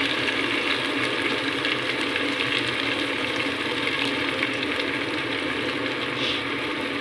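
Chicken and sliced mushrooms sizzling in a pan, a steady crackling sizzle, while a thin stream of dairy pours into the sauce.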